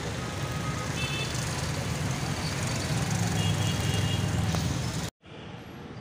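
Street traffic noise with motorcycle engines running past, a steady low rumble with a few short, faint high tones. It cuts off abruptly about five seconds in to a quieter hiss.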